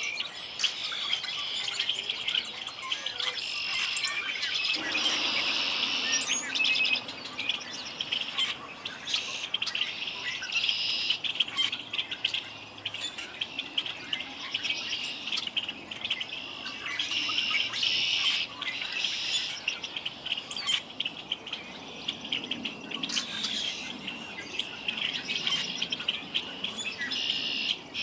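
Spring chorus of many songbirds chirping and singing at once, with calls and trills overlapping without a break.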